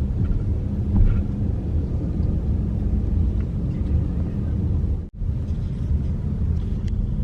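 Steady low rumble of a car driving along a road. It breaks off for an instant about five seconds in.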